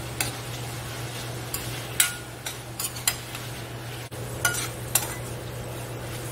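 Cubed beef sizzling in melted butter in a stainless steel pan. A utensil stirs it, clinking and scraping against the metal in irregular short knocks.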